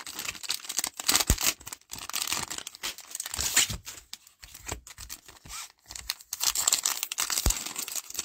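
Foil wrapper of a Panini Prizm football card pack crinkling in the hands and being torn open, in irregular crackling bursts, with a couple of soft knocks about a second in and near the end.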